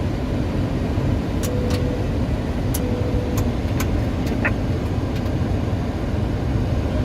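Steady rushing noise inside a Boeing 737 cockpit on final approach, airflow and engines, with a few sharp clicks and two brief faint tones in the middle.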